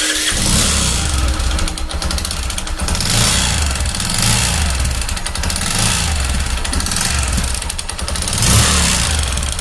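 Bajaj Platina 125 DTS-i single-cylinder four-stroke engine running with a fast knocking noise over its idle, swelling a few times as it is revved. The mechanic traces the noise to a seized piston scoring the cylinder wall, a piston-ring noise that sounds like connecting-rod knock.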